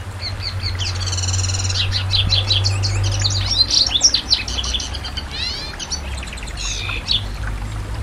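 Domestic canary singing a rapid, varied song of trills, chirps and quick sweeping notes that stops about seven seconds in, over a steady low rumble.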